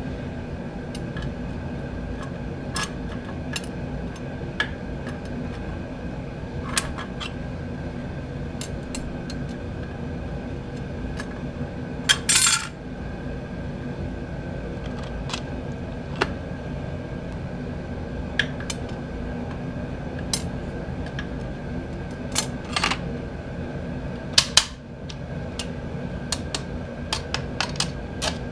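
Metal parts of a Ford E4OD automatic transmission clinking and tapping against each other and the case as they are handled and fitted, with a louder metallic clatter about twelve seconds in. A steady hum runs underneath.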